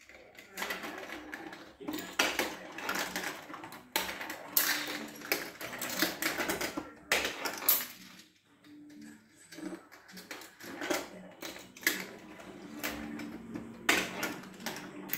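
Marbles rolling along plastic GraviTrax marble-run track, with many rapid clicks and clacks as they drop through pieces and strike the track elements. The run goes briefly quieter about eight seconds in, then picks up again.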